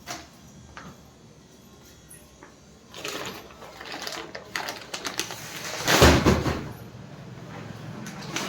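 Handling noises: quiet for about three seconds, then irregular rustling and knocks, with the loudest burst about six seconds in.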